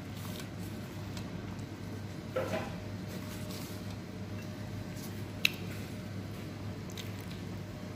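Soft handling sounds as a gloved hand moves cut cucumber sticks between a steel bowl and a glass bowl, over a steady low hum: a short scrape about two and a half seconds in and one sharp click about five and a half seconds in.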